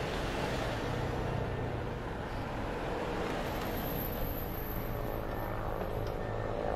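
Cars driving slowly past at close range, an SUV and then a saloon, their engines and tyres making a steady rumble.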